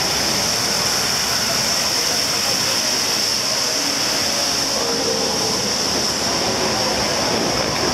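Electric trolley bus passing close on a wet street, with tyre hiss on wet pavement and traffic noise, over a steady high-pitched hiss. A faint whine rises and falls near the middle.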